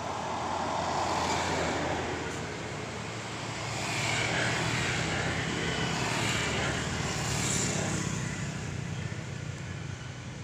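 Road traffic: motor vehicles passing, the engine and tyre noise swelling about a second in and again from about four to eight seconds in.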